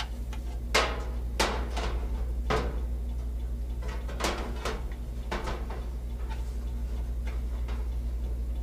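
Light knocks and scrapes of a blower motor being handled against the back panel of a propane wall heater while its wire connector is joined and it is fitted into the opening, about eight separate knocks in the first six seconds, over a steady low hum.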